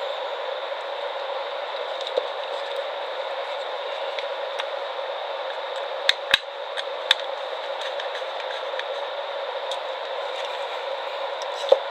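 Small sharp clicks and taps, about five in all with three close together midway, from handling wire and a plastic lamp holder while splicing, over a steady background hiss.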